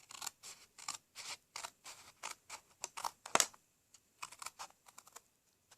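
Paper snips cutting through two layers of cardstock: a run of short, crisp snips, a few a second, with a brief pause a little past the middle.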